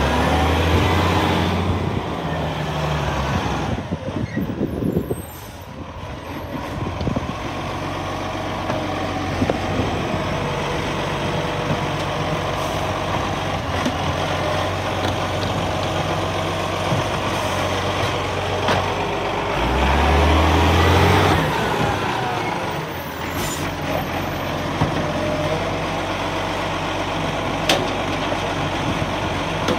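Acco side-loader garbage truck with its diesel engine running, an air brake hissing, as its hydraulic arm grabs a wheelie bin and lifts it to tip into the body. The engine revs up briefly at the start and again about two-thirds of the way through.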